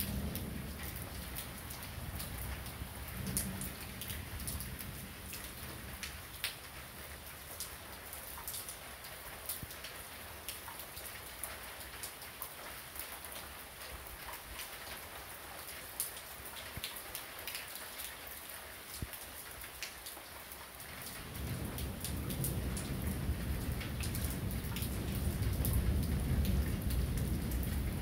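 Heavy rain falling steadily, with many sharp ticks of drops striking a close hard surface. A low rumble of thunder dies away in the first few seconds, and a long roll of thunder builds about three quarters of the way through and keeps rolling.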